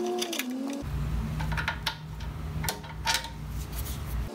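Screwdriver backing a screw out of a motorcycle's metal tank apron, with scattered light metallic clicks and clinks as the screw turns and comes free.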